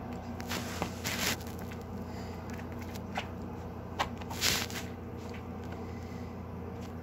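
A cat pawing and pouncing at a toy on a rug: two short rustling scuffs, about a second in and again about four and a half seconds in, with a few light taps, over a steady low hum.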